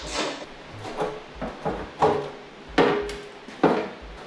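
Metal tools and parts clanking as they are handled, about half a dozen sharp knocks, two of which ring briefly with a metallic tone.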